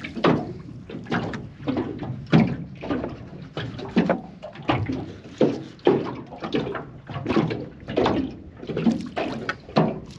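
Irregular knocks and clunks, one or two a second, from gear being handled.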